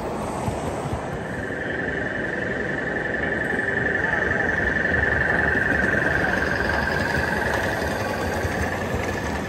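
Gauge 1 model trains running on the layout: a rumble of wheels on the rails with a steady high-pitched whine that sets in about a second in and is loudest around the middle.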